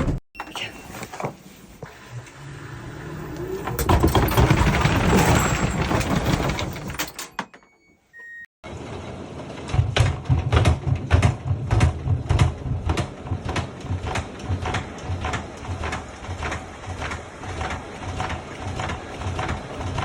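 LG washing machine spinning in test mode with its drum off balance. After a short gap, the drum knocks in an even rhythm of about two thumps a second, the sign of an unbalanced load making the machine jump.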